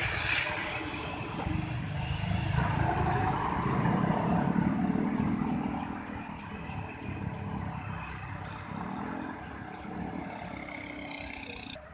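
Tour bus engine running, revving up with a rising tone from about two to six seconds in, then settling back to a lower steady rumble that cuts off just before the end.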